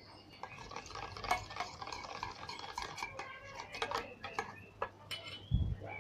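Slime mixture being stirred in a bowl: irregular scrapes and clicks of the utensil against the bowl, with a dull thump near the end.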